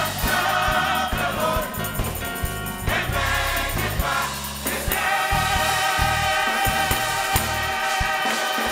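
Gospel choir singing with keyboard accompaniment; from about five seconds in the voices hold a long chord.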